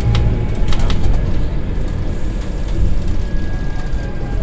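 Cabin noise of a Scania Citywide CNG city bus under way: the steady low rumble of its Scania OC9 gas engine and drivetrain, with a few sharp rattles from the fittings in the first second and a thin whine coming in near the end.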